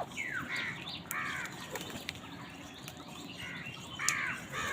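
Crows cawing: a run of short calls, each falling in pitch, three or four in the first second and a half, then a lull and several more near the end.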